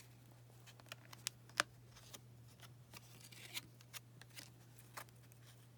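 1993 Fleer Ultra baseball cards that have stuck together being peeled apart and handled: faint scratchy rustling broken by sharp crackling ticks every second or so, over a steady low hum.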